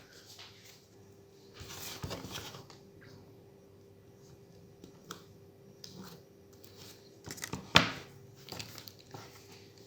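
Small handling noises from taking apart a smartphone: a brief scraping rustle about two seconds in, a few light ticks, and one sharp click near the end, over a faint steady hum.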